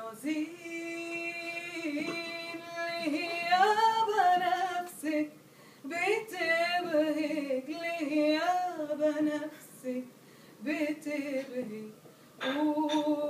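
A woman singing an Arabic song solo, with no instruments: a long held note at the start, then ornamented phrases that glide and waver in pitch, broken by short pauses for breath.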